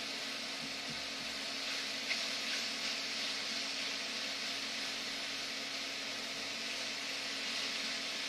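Mushrooms and onions sizzling steadily in a skillet on an induction cooktop as they are stirred with a spatula, with a light tap about two seconds in.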